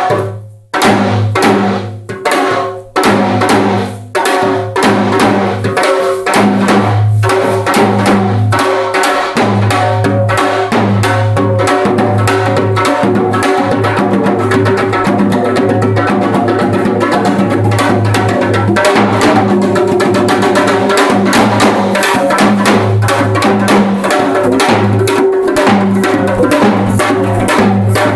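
Solo janggu, the Korean hourglass drum, beaten with sticks. The strokes are separate and spaced at first, then from about five seconds in become a fast, unbroken roll over the drum's deep low tone.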